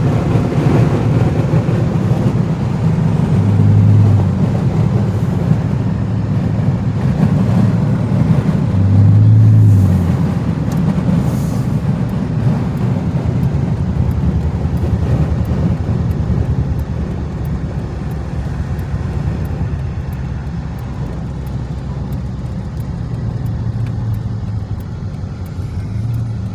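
Dodge Magnum driving, with a steady low engine and road rumble heard from inside the car. The engine note swells briefly twice, about 4 and 9 seconds in, then settles slightly quieter.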